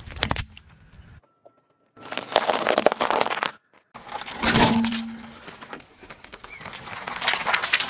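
A series of crunching and cracking sounds from objects crushed under a slowly rolling car tyre, each cut off abruptly, with a short gap of near silence after the first second.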